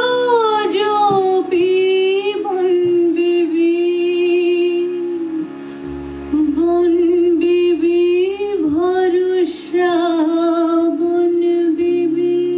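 A woman singing a melody in phrases over a steady held drone, with a deeper drone note joining about halfway through.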